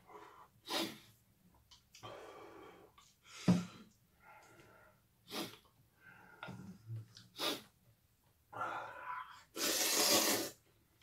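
A person slurping and chewing spicy instant jjamppong noodles: a string of short slurps and mouth noises, then a long, loud slurp with the bowl at the lips near the end.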